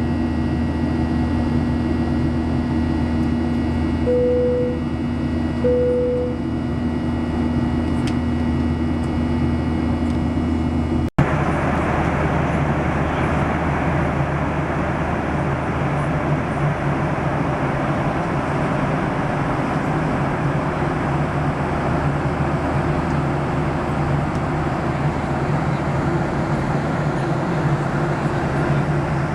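Boeing 737-800 passenger cabin noise in flight: a steady low engine and airflow hum with faint steady tones, and two short chimes of the same pitch about four and six seconds in. About eleven seconds in, an edit cuts to a steadier, hissier rush of air.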